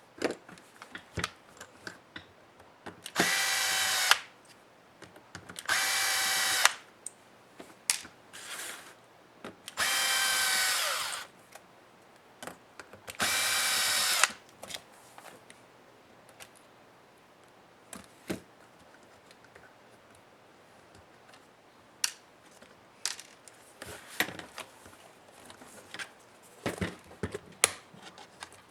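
Small electric screwdriver turning laptop case screws in four short whirring runs of about a second each in the first half, with scattered clicks and taps of small parts and screws being handled.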